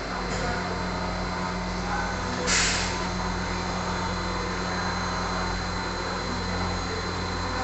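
CNC machine running with a steady mechanical hum, with a short hiss about two and a half seconds in.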